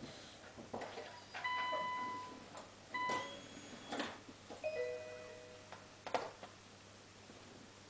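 Faint electronic warning chimes and clicks from a 2008 Nissan GT-R being readied to start: a beep about a second and a half in, a shorter one near three seconds, and a lower two-note chime near five seconds, among scattered clicks.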